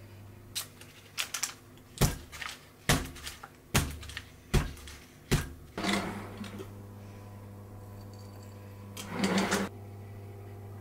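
Five hard knocks about a second apart as the batter-filled cheesecake tin and bowl are handled on the counter. Then a kitchen drawer slides open, and cutlery rattles near the end.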